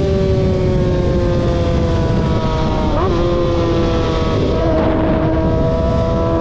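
Car engines running, their pitch sinking slowly, with a short upward blip of revs about halfway through, over a heavy low rumble.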